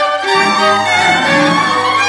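Recorded violin music: bowed violin lines with gliding, shifting pitches over a steady low sustained note that enters just after the start.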